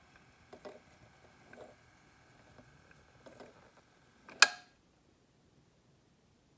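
Vinyl 45 rpm record playing out after the music has ended: faint surface clicks and pops over a faint steady high tone. About four and a half seconds in comes one sharp loud click, and the sound cuts to silence.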